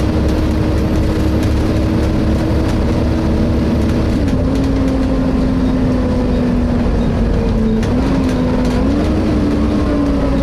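Volvo B7TL bus heard from on board: the six-cylinder diesel's low rumble with a steady whine from the drivetrain and cooling fan, the whine dropping in pitch about four seconds in and wavering near the end.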